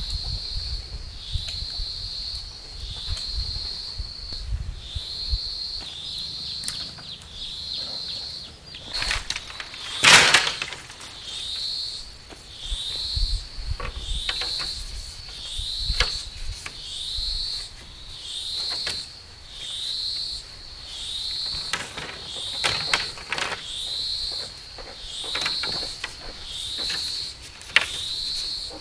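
A high chirping call, rising at the start of each note, repeats about once a second without a break. Over it come scattered knocks and taps of bamboo poles being handled and set against fence posts, the loudest a sharp knock about ten seconds in.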